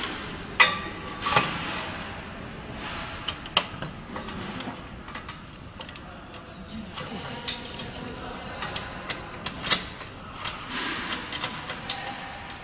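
Scattered clicks and knocks of hardware being handled as a clamp is fitted onto a pole, with a sharp knock about half a second in and another near ten seconds.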